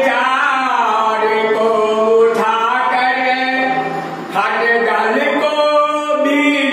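A man singing an aarti hymn unaccompanied. He holds long drawn-out notes that bend in pitch, with short pauses for breath about two and four seconds in.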